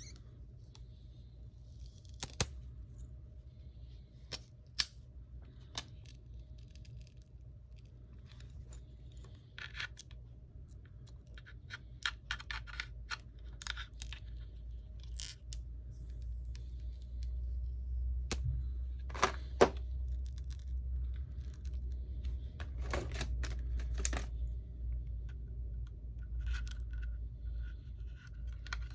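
Scattered small clicks, taps and scrapes of a plastic pry tool working the glued-in battery of an iPhone 6s Plus loose from its case, with a few louder scrapes in the second half, over a low steady hum.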